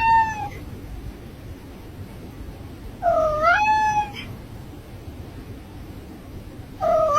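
A cat meowing three times. Each drawn-out meow dips and then rises in pitch before holding: one ends just after the start, one comes about three seconds in, and one begins near the end. A low steady rumble runs underneath.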